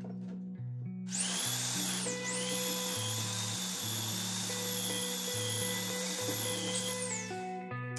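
Handheld electric power tool running against wood: its motor starts with a high whine about a second in, dips briefly, then winds down near the end. Background music plays throughout.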